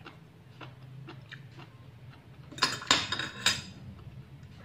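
Metal spoon and fork clinking against a ceramic soup bowl: a few light taps, then several sharper clinks about two and a half to three and a half seconds in as the utensils are set down in the bowl.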